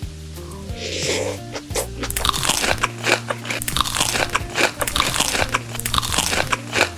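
Close-miked crunchy food being bitten and chewed in a rapid run of crisp crunches that starts about two seconds in, after a brief rustle.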